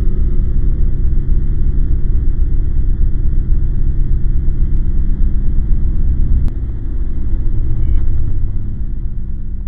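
A loud, deep, steady rumble with a few faint hum tones in it. It drops a little about six and a half seconds in, then fades out near the end.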